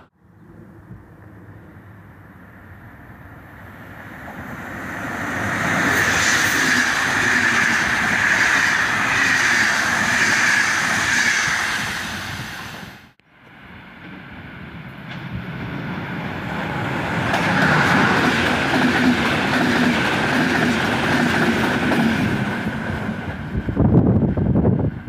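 Electric-locomotive-hauled trains running through the station: wheel and rail noise builds to a steady rush as a train draws near, breaks off about 13 seconds in, then builds again for a second approach. Loud, uneven rumbling near the end as the train comes close.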